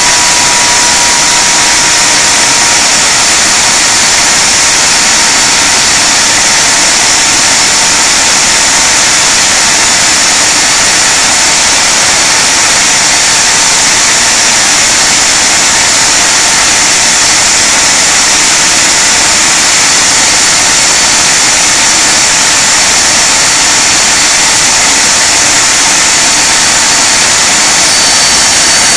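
Rolls-Royce Conway turbofans of a Handley Page Victor K2 running on a ground run, a loud steady jet roar and hiss with a whine that drifts slightly lower in pitch over the first few seconds; a higher whine joins near the end.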